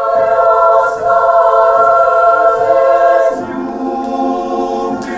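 A choir singing long held chords. About three seconds in the chord changes and lower notes come in beneath it.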